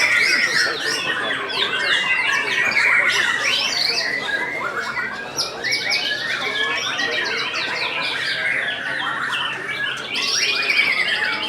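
Many caged white-rumped shamas (murai batu) singing at once in a dense, overlapping chorus of rapid chirps, trills and whistled glides, as heard during a contest judging round.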